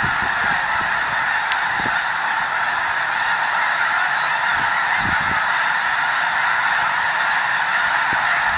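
A huge massed flock of snow geese calling all at once: a dense, steady din of countless overlapping honks.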